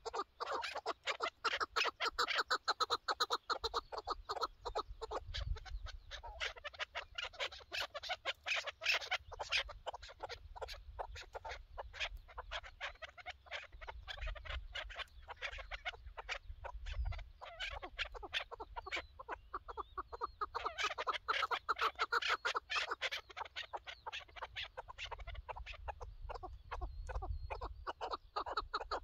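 Chukar partridges calling, a fast, continuous run of clucking chuck notes that swells and fades, loudest at the start and again about two-thirds of the way through.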